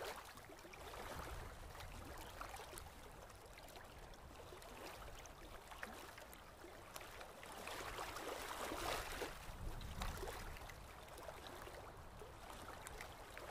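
Faint surf washing onto a sandy beach, swelling a little about eight seconds in.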